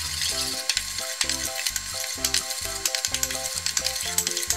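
Salted egg yolk and butter sauce sizzling in a stainless steel wok over low heat, with many small pops and ticks as a metal utensil stirs and scrapes it. A light background music melody plays underneath.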